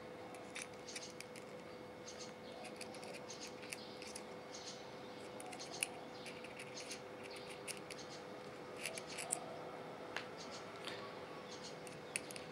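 Faint light clicks and small scrapes from pistols being handled and shifted on a woven mat, scattered through, over a steady faint hum.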